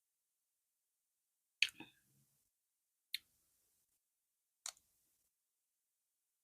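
Eating sounds: three short, sharp mouth clicks of chewing and lip smacking, about a second and a half apart. The first is the loudest and is followed by a brief soft squish.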